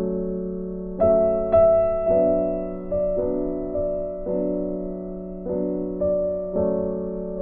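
Background music: gentle piano or electric-piano chords, struck and left to ring.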